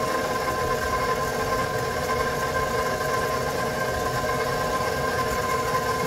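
Bowl-lift stand mixer running at low speed, its motor giving a steady whine as the flat beater churns stiff pâte à choux dough to work in an egg.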